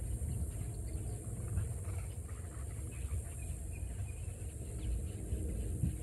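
Low, uneven outdoor rumble, with faint short bird chirps above it.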